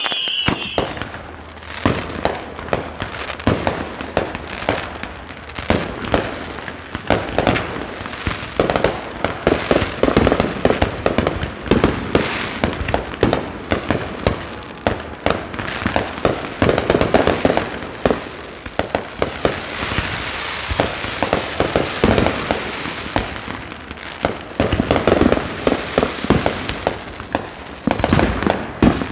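Consumer fireworks going off in a rapid, continuous barrage: many sharp bangs and crackles overlapping with no break, with a few whistles falling in pitch now and then.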